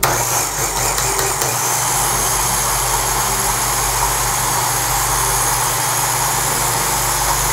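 Ninja blender's top-mounted motor switched on and running steadily, blending a thick peanut sauce in its plastic jar.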